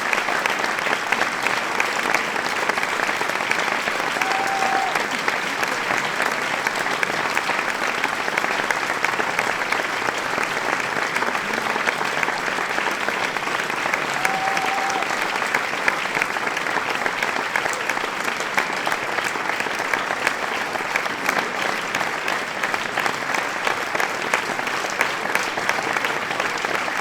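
Large crowd applauding, a dense and steady clapping that neither builds nor fades, with two brief pitched calls from the crowd, about five seconds in and again around fifteen seconds.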